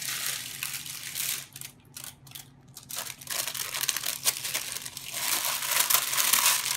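Parchment paper crinkling as it is handled, bent and lifted, with a quieter stretch around two seconds in and denser, louder crackling from about three seconds in.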